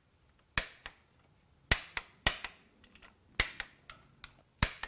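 Click-type torque wrench breaking over as each oil pump bolt reaches its set torque: sharp clicks, mostly in pairs, about five times in a few seconds.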